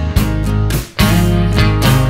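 Background music led by guitar, with strummed chords over steady held bass notes and a brief drop in loudness about a second in.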